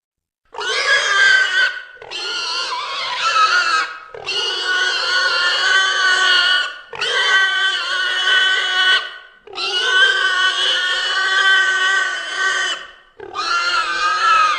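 Made-up Deinonychus calls, a sound-effect creature voice: six long, pitched calls in a row, each lasting about one and a half to three seconds, with short pauses between them.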